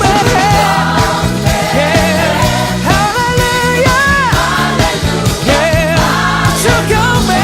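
Upbeat gospel worship music: a band with a steady beat under singing voices holding long, wavering notes.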